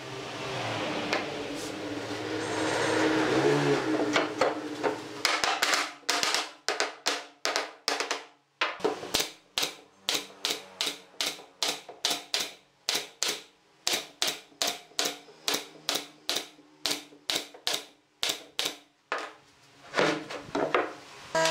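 Nail gun firing repeatedly, about two sharp shots a second, driving nails through pine boards into a wooden frame. The shots start about five seconds in, after a few seconds of softer noise.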